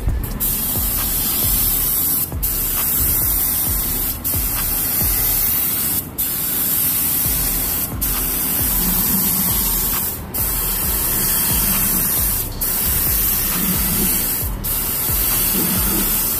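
Gravity-cup paint spray gun hissing as it sprays paint in long passes, the hiss cutting out briefly about every two seconds as the trigger is let go between strokes.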